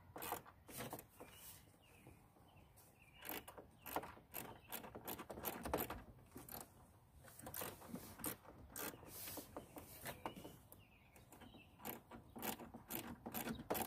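Small ratchet with an extension clicking in short, irregular runs as a 10 mm body mount bolt is turned, with light knocks from handling the tool.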